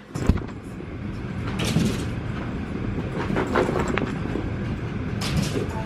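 Rumbling and scuffling on a carpeted floor close to the microphone as a person crawls and a Pomeranian runs laps around the room, with a few knocks scattered through it.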